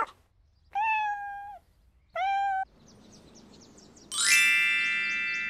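Kitten meowing twice, a second apart, the first call longer than the second. About four seconds in, a bright shimmering chime rings out and slowly fades.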